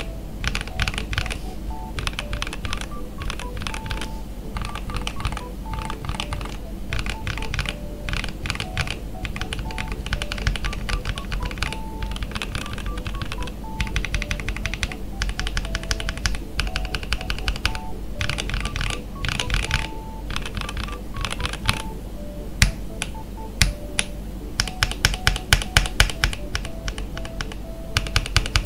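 Mechanical keyboard with KTT Matcha linear switches being typed on in quick runs of clacking keystrokes, with short pauses between runs. Near the end the typing thins out into slower, separate, louder key strikes. Soft background music plays underneath.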